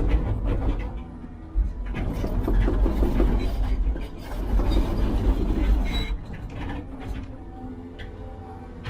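Heavy construction machinery working: a deep engine rumble that surges and eases several times, with metallic rattling and clanking.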